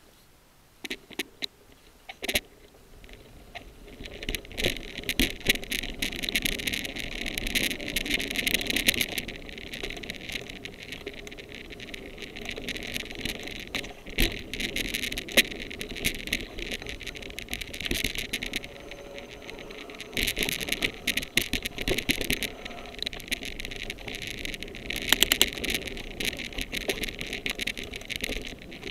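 Mountain bike riding over a dry-leaf-covered dirt trail: tyres crackling over leaves and dirt, with rattling and sharp knocks over bumps. It starts quiet with a few clicks and builds from about four seconds in.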